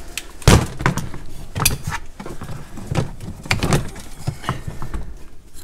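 Irregular clicks and knocks of a spare distributor being handled: lifted out of a box of parts, set down on a plastic tote lid and its cap worked off to get at the rotor.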